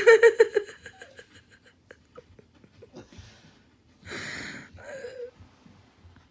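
Stifled human laughter: a short burst of pulsed giggling at the start, then quiet wheezing breaths and a louder breathy gasp about four seconds in.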